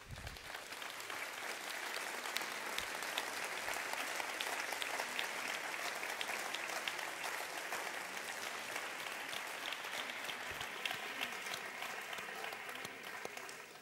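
Audience applauding, starting abruptly, holding steady and dying away near the end.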